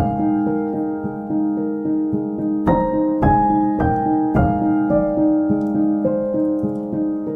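Background music: a gentle piano piece, notes struck and left ringing, with fresh chords coming in about every second.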